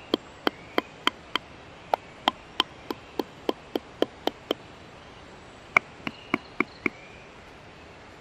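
A mallet striking a multi-pronged leather stitching chisel (pricking iron), punching stitch holes through leather: sharp taps about three a second, in runs of five to ten strikes with short pauses between them.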